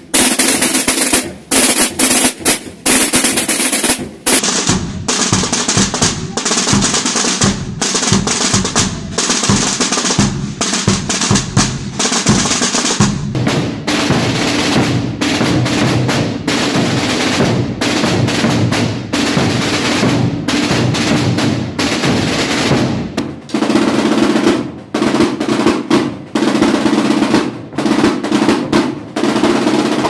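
Holy Week snare drums playing rolls broken by short stops, with bass drums (bombos) beating under them through the middle.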